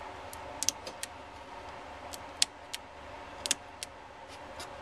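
3D-printed plastic parts clicking as they are popped by hand off a cold, hairspray-coated aluminium build plate. About a dozen small sharp clicks come at irregular intervals over a steady faint hum. The parts come free with no force or spatula.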